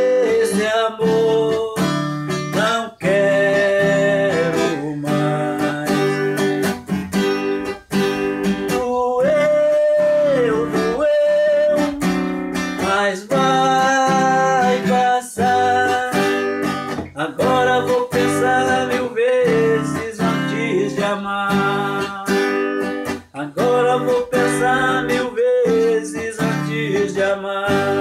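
Acoustic guitar strummed and picked, with a man singing over it in long, wavering held notes.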